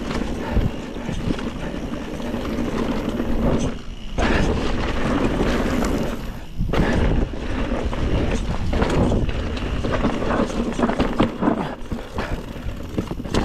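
Mountain bike being ridden over rough dirt trail: a steady noisy rumble of tyres and rattling bike, full of small knocks. It drops away briefly about four seconds in and again near seven seconds.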